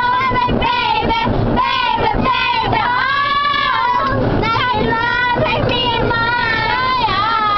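A group of children singing loudly together inside a car.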